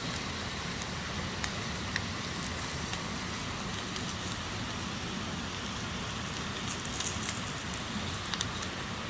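Bacon and eggs frying in a pan over a campfire: a steady sizzling hiss with scattered sharp pops, a few louder ones near the end.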